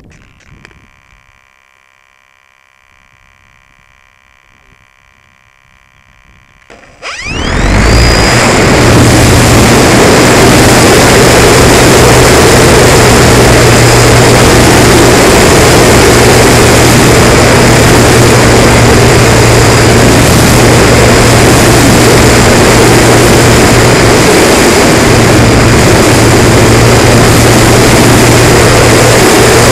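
Multiplex Heron RC glider's electric motor and nose propeller spinning up about seven seconds in with a rising whine, then running steadily at full power through the climb. It is loud and close, heard from a camera mounted on the airframe.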